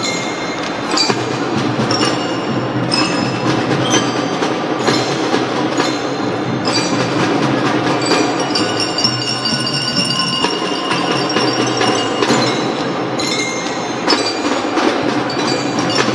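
Drum band playing a march, with mallet percussion ringing the melody over drums.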